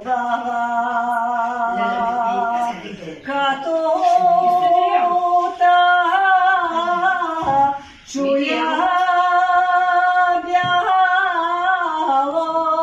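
An older woman sings a Bulgarian folk song unaccompanied, in long held, wavering phrases. She breaks for breath about three seconds in and again near eight seconds.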